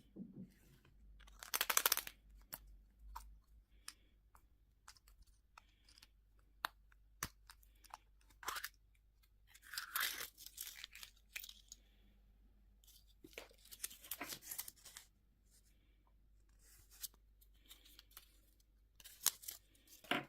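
Candy and toy packaging being torn open by hand, with crinkling wrapper noise in a few short bursts and small clicks of handling in between.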